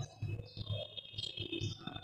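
Chalk tapping and scraping on a blackboard as words are written, in short irregular strokes, over a faint steady high-pitched whine.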